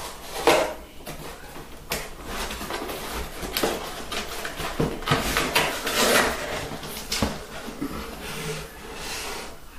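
Cardboard rubbing and scraping as an inner carton is slid up and out of a larger shipping box, with a series of short scuffs and knocks, the loudest about half a second in.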